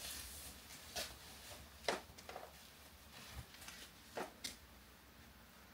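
Soft rustling and brushing of a cropped hooded sweater being pulled on over the head and arms: several short brushes of fabric spread through the moment, over a faint room hiss.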